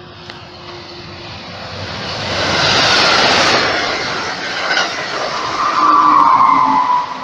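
Amtrak Keystone Service train passing at speed behind a Siemens ACS-64 electric locomotive: rushing wheel and air noise that builds to a peak about three seconds in. Near the end, as the locomotive goes by, a high whine drops slightly in pitch.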